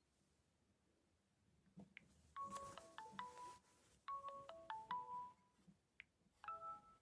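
Faint ringtone from an LG G2 mini: a short melody of chiming notes begins about two and a half seconds in, repeats, and starts a third time near the end.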